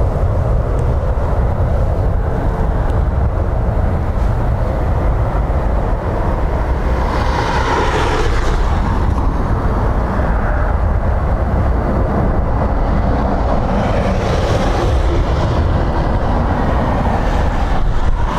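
Storm-force wind buffeting the microphone: a steady heavy rumble with two louder hissing surges, about eight and fourteen seconds in.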